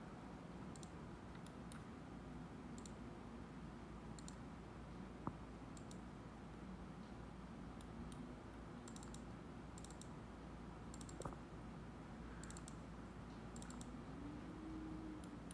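Computer mouse clicking: a run of short, sharp clicks, many in quick pairs and bunched together in the second half, over a faint steady room hum.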